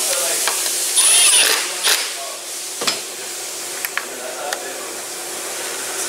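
Scattered clicks and knocks of a hand tool and a new ignition coil being fitted into the top of a car engine, with a short rasping burst about a second in, over a steady background hiss.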